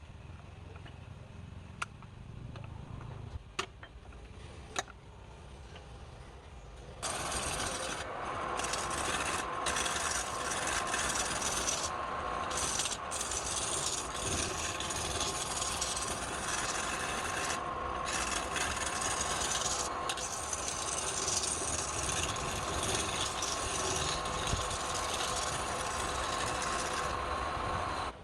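Wood being worked on a turning lathe: a low hum with a few sharp ticks, then about seven seconds in a loud, rough rubbing and scraping of a tool or abrasive against the spinning wood, over a steady hum, until it stops near the end.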